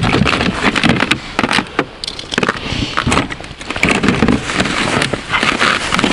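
Rummaging through a plastic tackle box: lures and small plastic boxes clatter and scrape in many quick clicks, and a plastic bag crinkles near the end.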